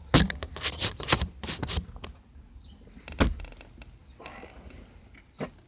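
Socket wrench working loose the steering wheel's centre nut: a quick, uneven run of sharp metallic clicks in the first two seconds, then a few single clicks.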